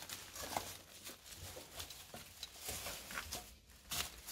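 Footsteps through dry grass, leaves and twigs: a run of irregular crackles and rustles.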